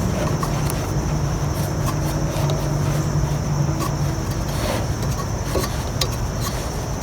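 Steady background rumble with a low motor-like hum that fades out about four seconds in, a thin high steady tone, and a few faint clicks.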